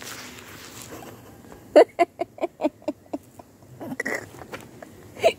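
Hen clucking in a quick run of about eight short clucks while it is held pinned to the ground, followed by a few single clucks.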